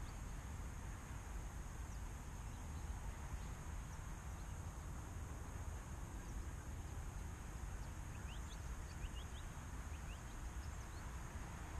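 Outdoor ambience on a golf course: a steady, uneven low rumble of wind on the microphone, with a few short, rising bird chirps about eight to nine seconds in.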